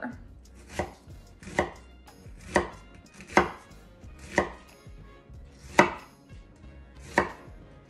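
Chef's knife slicing down through a halved red onion onto a wooden cutting board: seven cuts at about one a second, each ending in a sharp knock of the blade on the board.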